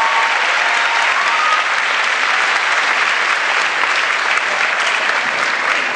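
Audience applauding, a dense steady clapping that carries on through the whole stretch.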